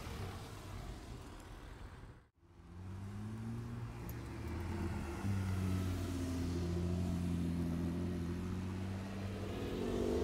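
Porsche sports car engines running at low revs as the cars drive slowly past one after another. The steady low engine note starts about two seconds in and grows louder from about halfway.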